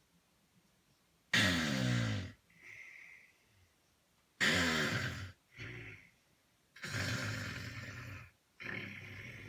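A sleeping woman snoring: three loud, rough snores about three seconds apart, each followed by a softer breath. Quiet for her.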